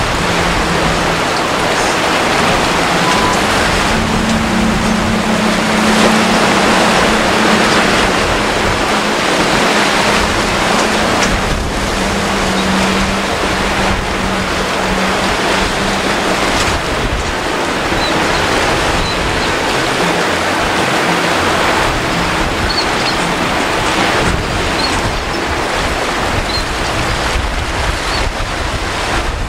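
Wind buffeting the microphone over crashing surf, with the drone of a boat's outboard motors under it, shifting in pitch through the first half and fainter later on.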